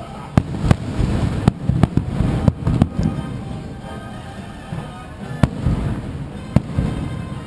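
Fireworks bursting: a run of sharp bangs, thickest in the first three seconds and then spaced out, over a low booming rumble, with music playing underneath.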